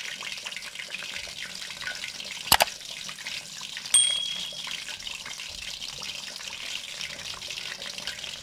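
Pomfret fish pieces deep-frying in hot ghee in an aluminium pan: a steady crackling sizzle. About two and a half seconds in there is a sharp click, and a second and a half later a short high ding, the sound effects of a subscribe-button animation.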